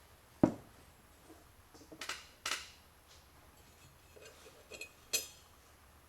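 A sharp knock about half a second in, then a few lighter metallic clinks and taps, from small metal parts or tools being handled.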